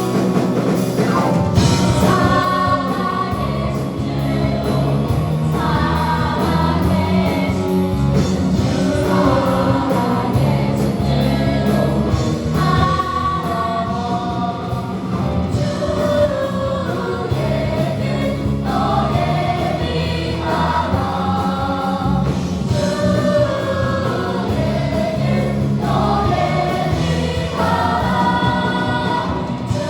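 A choir sings a gospel-style worship song in phrases of a few seconds each, over steady instrumental accompaniment.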